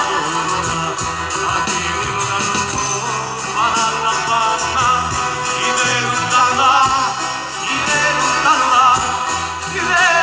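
Live folk band playing an up-tempo dance tune, amplified through the stage PA: accordion and acoustic guitars over electric bass and double bass, with a steady beat.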